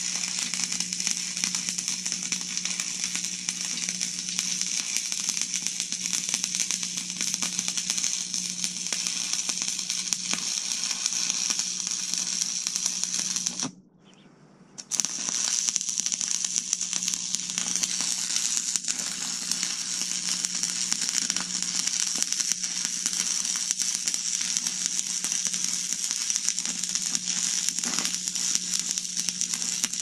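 Stick-welding arc from a buzz-box welder crackling and sizzling steadily over a low hum as a bead is run on steel tubing. About halfway through, the sound cuts out for about a second, then the arc starts up again.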